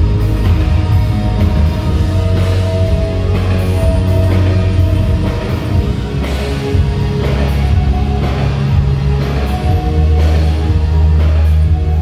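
A live rock band playing loud through the PA: electric bass, keyboard and guitar over a steady drum beat.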